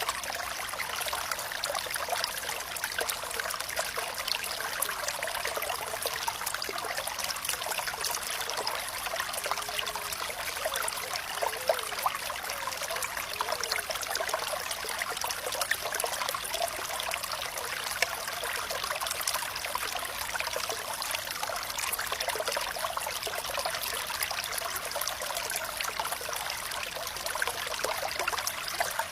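Running water trickling and splashing steadily, like a small stream: a fine, high splashing with little deep rumble.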